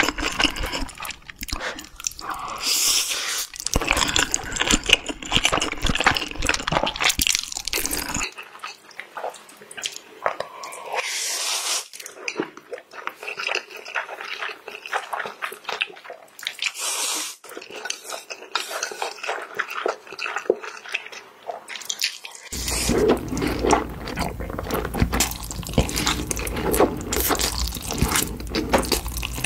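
Close-miked slurping and chewing of black bean noodles (jjajangmyeon): wet smacking, sucking and clicking mouth noises in an irregular stream. The sound changes abruptly twice, about 8 and 22 seconds in.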